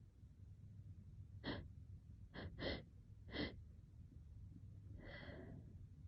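A person's faint, hitching gasps: four short, sharp catches of breath, then one longer breath near the end. These are the breath hitches of someone in an allergic sneezing fit.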